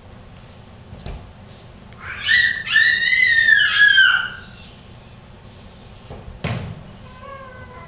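Puppy yelping in a string of loud, high, arching squeals for about two seconds, starting about two seconds in. A single sharp knock follows a couple of seconds later, then a faint, lower whine near the end.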